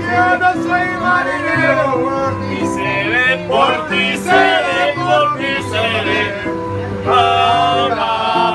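Music with singing over a bass line that steps from note to note.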